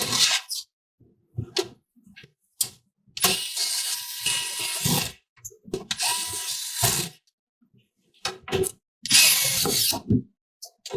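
Sounds of a desktop PC being assembled: three short bursts of whirring and scraping, with clicks and knocks between them.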